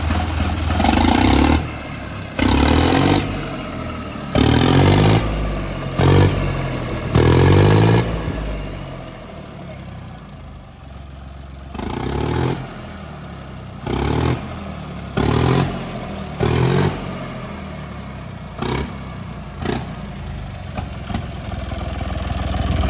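John Deere 5305 tractor's turbocharged diesel engine, exhausting through a bare straight pipe off the turbo, revved in about ten short throttle bursts with a lull in the middle. After the bursts the turbo whistle falls away.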